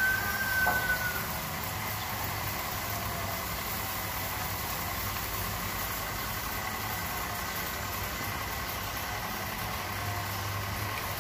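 A steady motor hum, with a short high whistle-like tone during the first second.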